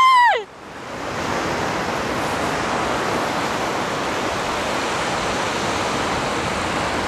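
A woman's high, drawn-out wail ends about half a second in, falling in pitch as it breaks off. After it comes a steady, even rush of surf, which swells up over the next half-second.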